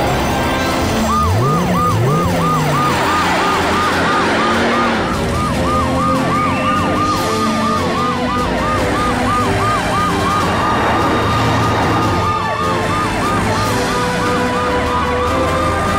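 Emergency-vehicle sirens in a cartoon, yelping in a fast repeating warble several times a second, with slower wailing glides over it. They sound as the rescue vehicles head out on a call.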